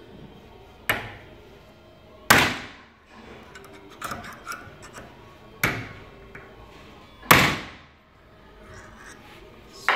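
Four hammer blows on a ring spanner fitted to a clamped Faraday Motion 6364S brushless skateboard motor, each a sharp metallic clang that rings briefly, falling in two pairs about a second and a half apart, with a few small clinks between them. The blows are shock-loading the motor's shaft and bolt to test its strength.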